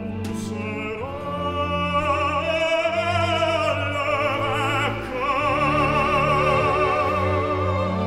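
Operatic baritone singing long held notes with a wide vibrato over sustained orchestral strings. The voice enters about a second in and moves to a second long note just before five seconds.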